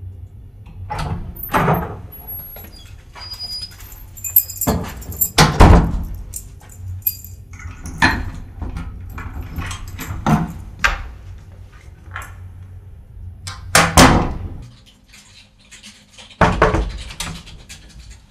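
A dorm-room door being handled: a string of separate thumps and clicks from the latch and the door moving, the loudest about five and a half and fourteen seconds in, over a low steady hum that stops about fifteen seconds in.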